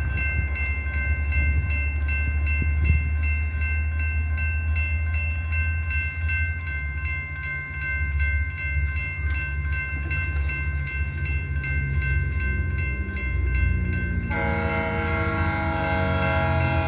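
Railroad crossing bell ringing with even, rapid strokes over the low rumble of an approaching GO Transit EMD F59PH diesel locomotive. About 14 seconds in, the locomotive's multi-chime air horn starts blowing and holds to the end.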